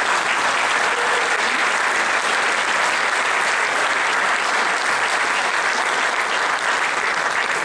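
Audience applauding steadily, greeting the announcement of an award winner.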